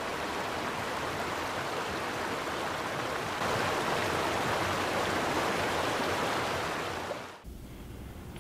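Steady rush of flowing water that gets a little louder about three and a half seconds in, then cuts off abruptly near the end, leaving a quieter low hum.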